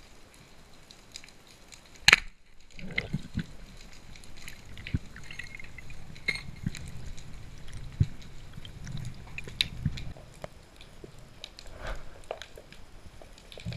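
Speargun fired underwater, heard through the camera's waterproof housing: one sharp, loud crack about two seconds in. It is followed by scattered small clicks and knocks over a low water rumble, from the gun, the shooting line and the struggling speared fish.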